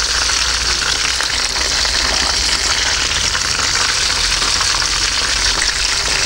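Hot frying oil sizzling and crackling steadily.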